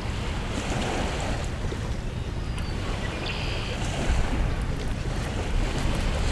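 Steady outdoor ambience of wind and lapping water, with a low rumble of wind on the microphone.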